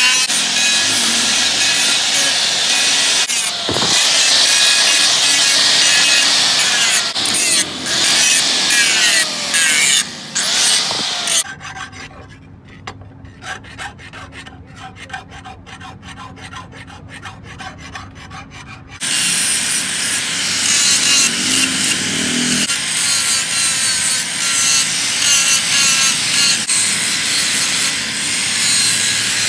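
Angle grinder grinding a forged steel sickle blade, loud and steady. About eleven seconds in it stops, and a hand file rasps along the blade's edge in quieter, rhythmic strokes. The grinder starts again about nineteen seconds in.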